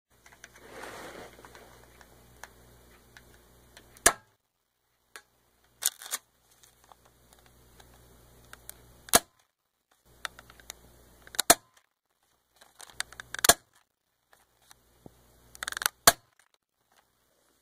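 Air-gun shots, about six sharp cracks two to three seconds apart, fired into a block of ballistic gelatin, with small handling clicks between shots.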